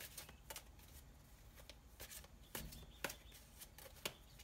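Faint handling of a deck of cards: a few short, sharp clicks and light rustles, scattered and irregular, over a quiet background.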